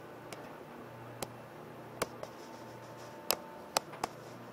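Faint, steady low hum of a high-speed ferry's engines running as it pulls away, with a scattered series of sharp, irregular clicks over it.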